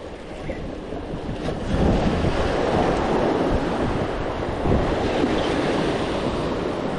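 Ocean waves surging and washing over jetty rocks, a steady rush of water that swells louder about two seconds in, with wind on the microphone.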